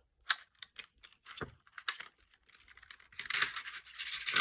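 Plastic packaging of a toy alphabet-magnet set being handled and opened: a few scattered light clicks, then from about three seconds in a dense crinkling of plastic.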